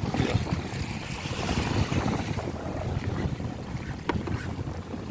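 Wind buffeting the microphone over choppy sea water splashing against the side of a small fishing boat, with a short knock about four seconds in.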